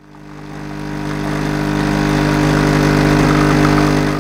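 Bean-to-cup espresso machine's pump humming steadily as coffee pours from its spouts. It fades in over the first couple of seconds and cuts off at the end.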